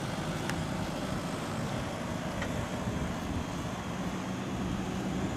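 Off-road vehicle's engine running steadily with a low, even hum, and a couple of faint clicks over it.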